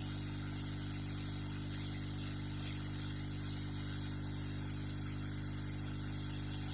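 Hot-air rework station blowing at full air and full heat onto a motherboard chip: a steady hiss of air over a constant electrical hum.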